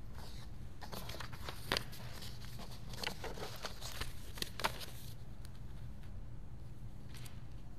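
Handling noise at a pulpit: rustling and a few sharp clicks and taps as papers and objects are moved about, heard over a steady low room hum.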